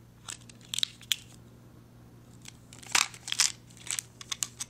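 Clear plastic coin sleeves crinkling and clicking as coins are handled, in scattered short crackles, a few in the first second and a busy run in the second half.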